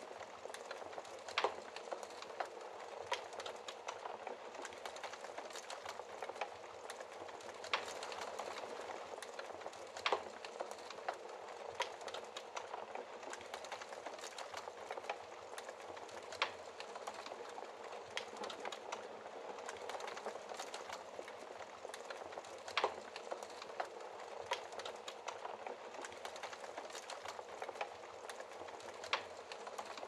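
Wood fire crackling in an open fireplace: a steady hiss of burning logs with irregular sharp pops and snaps, a few noticeably louder than the rest.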